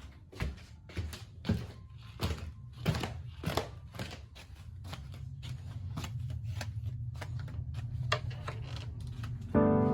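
A series of sharp knocks with low thuds, roughly one or two a second, then a steady low hum. Piano music comes in just before the end.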